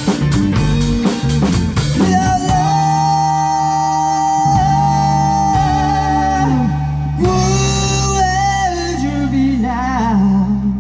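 A band playing a rock-blues song: sung vocals over guitar and bass, with drum hits in the first two seconds and then long held notes.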